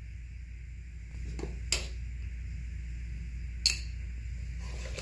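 Two light, sharp clicks, about two seconds apart, of small objects being handled on a granite bathroom vanity, over a steady low hum.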